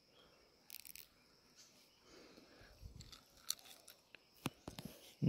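Faint wet tearing and small clicks of a ripe mango being broken open by hand and bitten into, with a short tearing burst about a second in and scattered clicks near the end.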